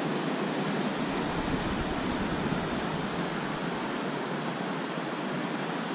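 Steady hiss of sea surf washing up the beach, with some low wind rumble.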